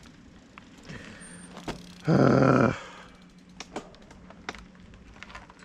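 Mountain bike rattling and clicking over a rough dirt trail, with scattered sharp knocks. About two seconds in there is a loud, brief pitched sound lasting under a second.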